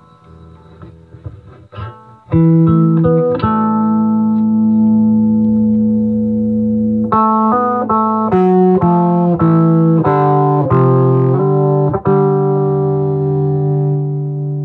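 Electric guitar played through an Acoustic Control Corp 260 solid-state amp head, its Variamp set to range two at full effect, with the reverb turned down. Quiet single notes for the first couple of seconds, then loud chords: one held for a few seconds, then a run of chord changes.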